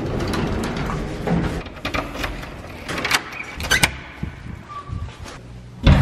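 Keys clicking in a door lock as it is unlocked, several sharp metallic clicks, then a loud thud as the door is pushed open near the end.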